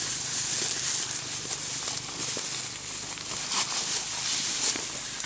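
Rustling and crackling of tall dry grass and brush being pushed through at close range, coming and going unevenly, with scattered small snaps of stems.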